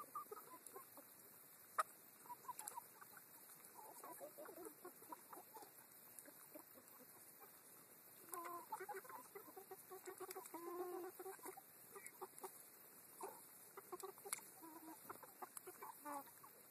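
A flock of chickens clucking softly and on and off as they forage, with a busier run of clucking from about eight to eleven seconds in. One sharp click sounds about two seconds in.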